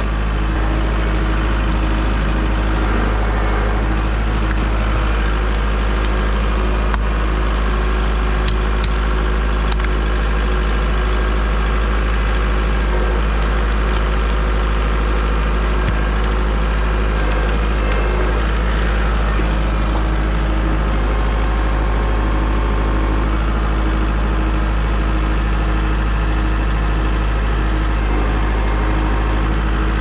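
Woodland Mills HM130Max portable band sawmill running steadily, its gas engine under load as the blade saws through a log.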